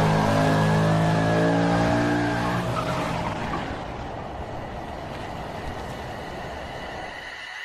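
A car engine revving, its pitch falling steadily over the first three seconds, as of a car passing by. It then fades into a rushing noise that grows quieter.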